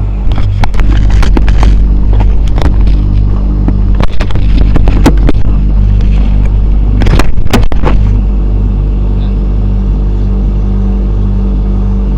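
Vapor blasting cabinet running: a steady machine hum, with irregular bursts of spray hiss and knocks for about the first eight seconds, after which only the hum goes on.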